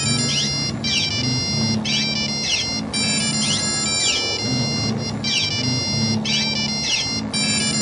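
Several mobile phones ringing at once, their electronic ringtones overlapping into a jumble of high beeping tones and rising and falling trills that come in short repeating bursts.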